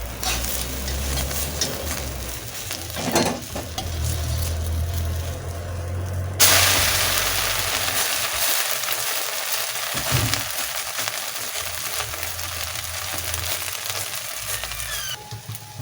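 Beaten spicy omelette egg mixture frying in hot oil in a pan: a loud sizzle starts suddenly about six seconds in and eases slowly, dropping away shortly before the end. Before it there is a low rumble and a knock about three seconds in.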